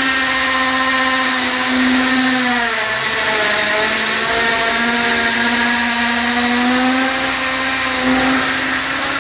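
Electric drill boring the hole for the AC pipes through the wall, running steadily. Its pitch drops for a couple of seconds, about three seconds in, then climbs back.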